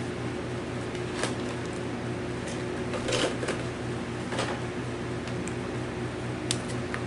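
Packaging being opened and an item taken out by hand: scattered small clicks and rustles, over a steady low hum.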